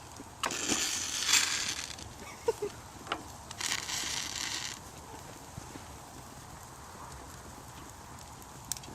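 Matches burning inside a dead microwave, with two hissing flare-ups, each lasting about a second, and a few sharp crackles in between.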